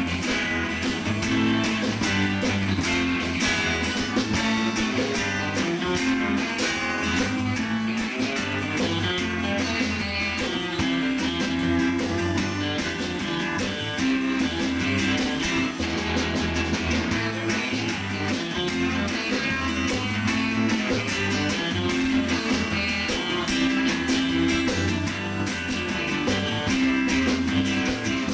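Live band playing a 1960s instrumental: twangy electric lead guitar on a Fender Stratocaster over bass and drums keeping a steady beat.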